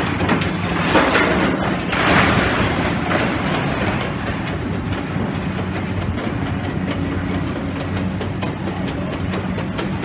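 Demolition excavator at work: its diesel engine hums steadily under a continual clatter and crunch of breaking debris and scrap. Two louder surges of crashing rubble come about one and two seconds in.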